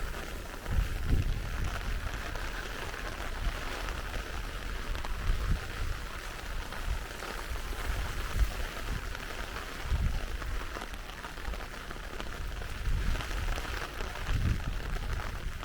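Steady rain falling and pattering on surfaces, with irregular low rumbles underneath every few seconds.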